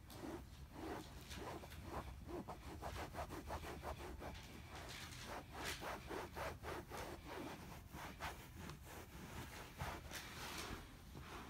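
A cloth rubbed briskly back and forth over a leather couch cushion, a quick run of soft rubbing strokes at about three a second, wiping off pen ink loosened by sunscreen spray.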